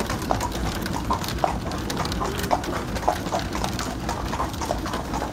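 Shod horse's hooves clip-clopping on an asphalt road in a steady, even rhythm of about three hoofbeats a second as it pulls a buggy, with a steady low rumble underneath.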